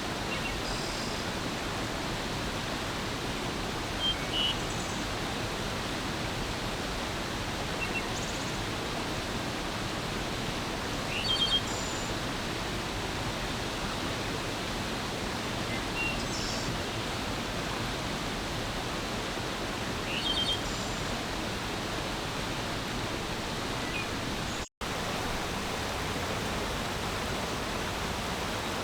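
Steady rushing flow of a forest stream, with short bird chirps every few seconds above it. About three-quarters of the way through, the sound cuts out completely for a split second.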